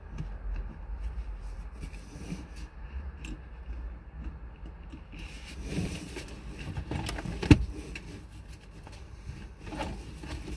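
Clicks and handling noise from a Saab 9-5's seatbelt latch plate being worked in and out of its buckle, with one sharp click about seven and a half seconds in, over a low rumble. The belt is being jimmied to sit only partly latched.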